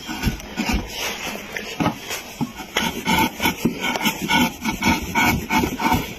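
Hand tool scraping or rasping on wood in quick repeated strokes, irregular at first, then settling into a steady rhythm of about three strokes a second.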